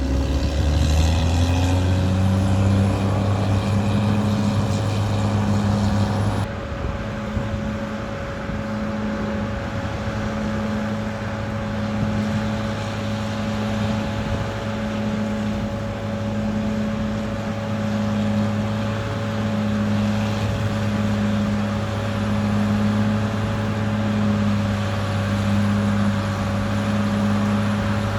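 Caterpillar D6R XL bulldozer's diesel engine working under load, speeding up over the first couple of seconds and then running steadily with a slow, regular rise and fall, over a steady higher whine.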